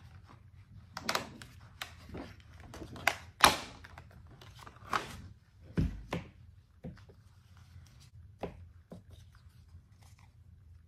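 Paper and craft materials handled on a tabletop: irregular rustles and crinkles with clicks and knocks of small objects being picked up and set down, the loudest about three and a half seconds in and a low thud near six seconds.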